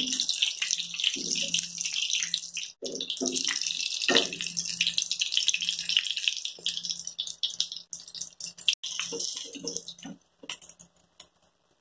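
A chicken drumstick deep-frying in hot oil in an iron kadai: steady sizzling with crackling pops. The sizzle dies away near the end as the drumstick is lifted out of the oil.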